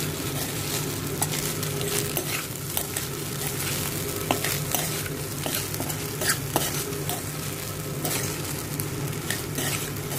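Egg fried rice sizzling in a nonstick pan as a metal spatula stirs and tosses it, with frequent light scrapes and clicks of the spatula against the pan over a steady frying hiss.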